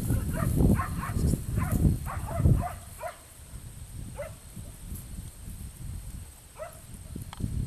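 A working kelpie barking: a quick run of short barks over a low rumble in the first three seconds, then single barks a couple of seconds apart.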